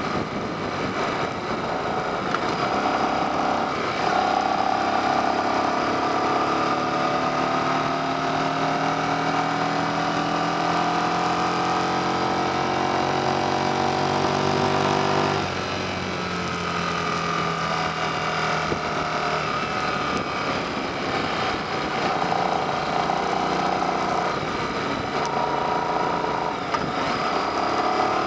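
Yamaha XV750 Virago's air-cooled V-twin engine under way, its pitch climbing slowly for about ten seconds, then dropping abruptly about halfway through before it runs on steadily. Wind rushes over the bike throughout.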